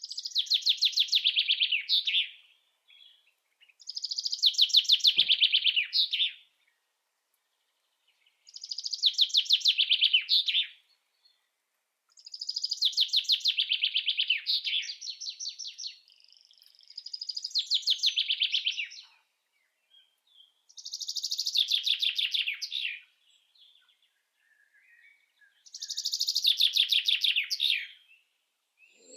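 A songbird singing the same song over and over: seven phrases of fast trilled notes, each about two seconds long and falling in pitch, with a pause of about two seconds between phrases.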